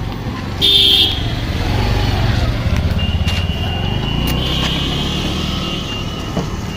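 Motorcycle engine idling with a steady low hum, and a short vehicle horn toot about a second in.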